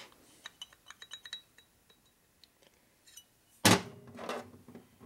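Light metallic clicks and clinks as an outside micrometer is worked on a piston, then one loud thunk about three and a half seconds in.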